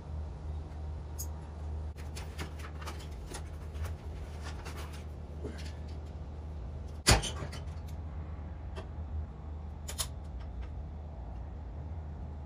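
Small clicks and rattles of hands working at a motorcycle's battery under the removed seat while hooking up a jump starter, with one sharp, loud knock about seven seconds in. A steady low hum runs underneath.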